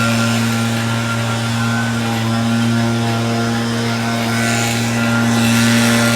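Steady engine drone holding one low pitch with a row of overtones above it, a little louder near the end.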